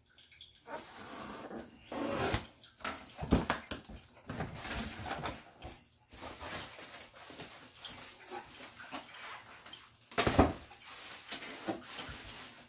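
Cardboard shipping box being opened and unpacked by hand: flaps and packing material rustling and crinkling, with a few sharper knocks, the loudest about three and ten seconds in.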